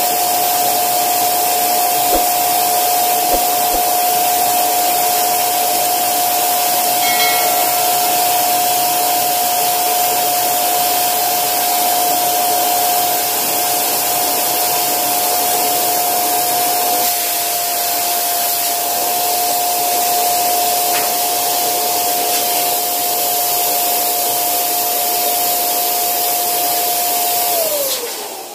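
Electric balloon pump running steadily with a constant whine, blowing air into an inflatable bear chair. Near the end the pump is switched off and the motor winds down with a falling pitch.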